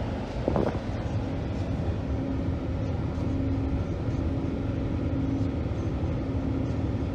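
Cab noise of a 2013 Ford F-150 with the 3.5-litre V6 under way: the engine and road running steadily with a faint steady hum. A brief short sound about half a second in.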